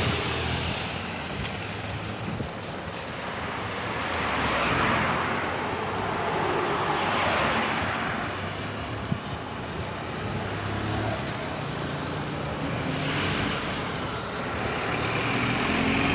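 Road traffic on a multi-lane avenue: cars passing one after another, each rush of tyre and engine noise swelling and fading, with a louder pass near the end.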